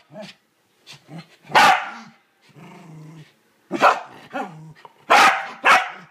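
Welsh corgi puppy barking and growling at a toilet brush: a sharp bark about a second and a half in, a low steady growl, then a quick run of four barks in the second half.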